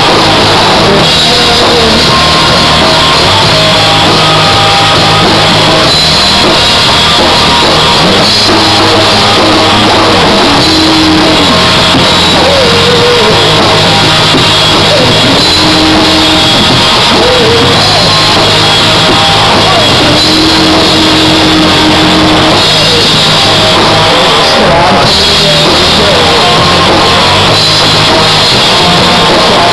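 Rock band playing live, very loud: electric guitar, bass guitar and drum kit, with a male lead singer singing into a microphone.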